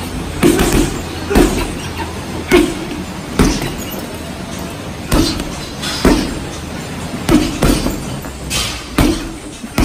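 Boxing gloves landing short punches on a Title Boxing heavy bag at close range. Dull thuds come about once a second, some in quick pairs, about a dozen in all.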